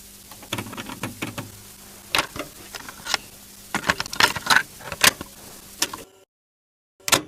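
A series of irregular clicks and knocks over a faint steady hum, cutting out about six seconds in, with one more click near the end.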